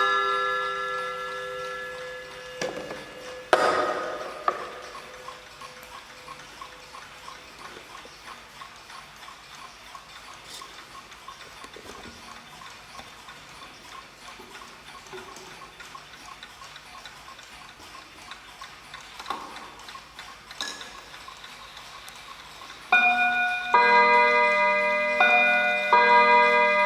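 Mantel clocks: a chime rings out and fades, then steady clock ticking goes on with a few sharp knocks. About 23 seconds in, a chime tune starts, with several ringing notes struck in turn, much louder than the ticking.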